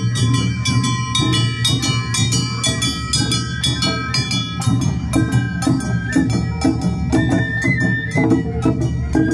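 Awa Odori festival band playing the marching accompaniment: taiko drums and brass hand gongs (kane) strike a quick, steady beat, while shamisen and bamboo flutes (shinobue) carry the melody. The flute line steps higher about seven seconds in.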